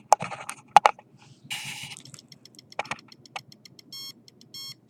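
Handheld microwave detector being handled, with a few sharp knocks and a brief rustle. About four seconds in, its alarm starts sounding in rapid short beeps: the sign that it is picking up a signal.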